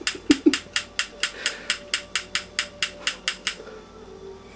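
Elephant-shaped novelty torch lighter's igniter clicking rapidly, about five sharp clicks a second, stopping near the end without catching. The lighter was filled with lighter fluid instead of the butane it needs, so it won't light.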